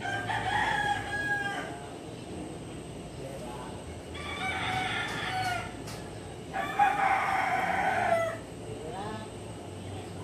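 A rooster crowing three times, each crow about a second and a half long, followed by a short rising chicken call near the end.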